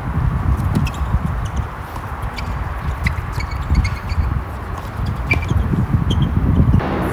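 Doubles tennis rally: a serve followed by several sharp racket-on-ball pops and scuffing footsteps on a hard court, over a loud low rumble.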